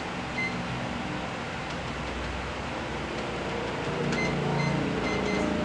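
Microwave oven running with a steady hum, with a few short high electronic beeps, one early and a quick series about four seconds in.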